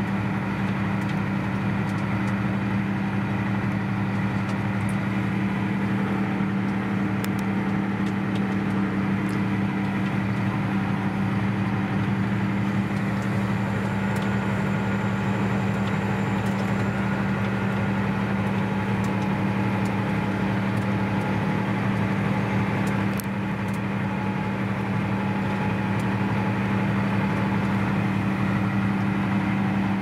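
Valtra T174 tractor's six-cylinder diesel engine heard from inside the cab, running steadily at a constant pitch under load while pulling a five-furrow reversible plough.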